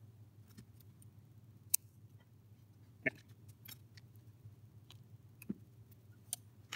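Scattered faint clicks and ticks from hands handling a stripped microphone cable end and small tools on a silicone work mat, the sharpest a little under two seconds in, over a low steady hum.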